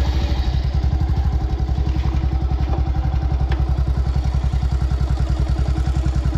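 Motorcycle engine running steadily at low revs just after being started, with an even, fast throbbing pulse and no revving.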